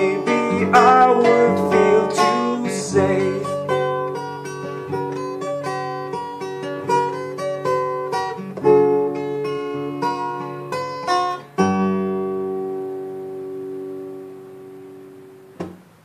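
Steel-string acoustic guitar played with the fingers, picking notes and chords in the song's closing outro. A last chord rings out and fades away, and a soft knock comes near the end.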